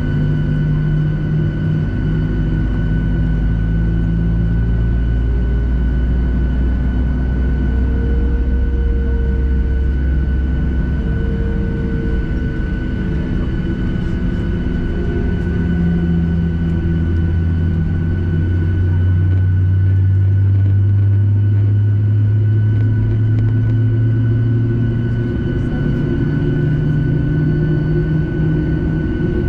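Inside the cabin of a Boeing 737-700 while taxiing, its CFM56-7B jet engines running at idle. There is a steady, constant whine over a low drone that shifts in pitch now and then.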